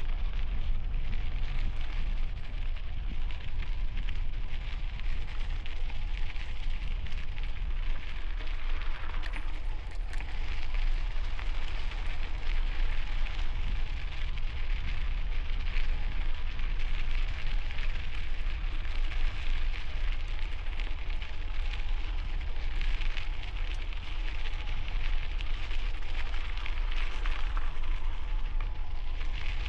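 Bicycle tyres rolling on gravel, a steady crackling crunch, with wind buffeting the helmet-mounted camera microphone as a constant low rumble.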